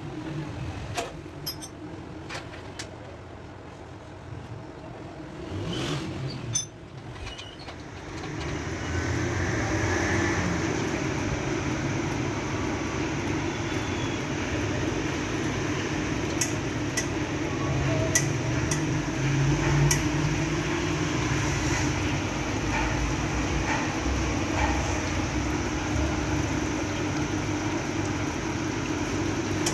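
Fiorenzato Venezia two-group espresso machine: a few sharp clicks and knocks of handling, then from about eight seconds in the machine runs steadily with a low hum and a hiss.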